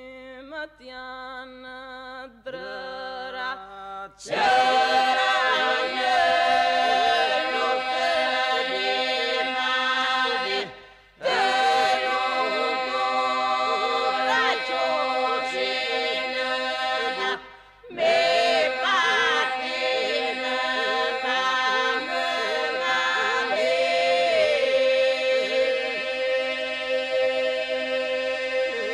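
Choir singing with little or no accompaniment. The opening few seconds are quieter, then about four seconds in the full choir comes in loud, and it breaks off briefly twice before carrying on.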